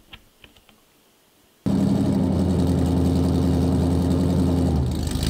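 A few faint clicks, then about a second and a half in a loud, steady engine-like drone with a constant low hum starts abruptly and runs on, changing slightly near the end.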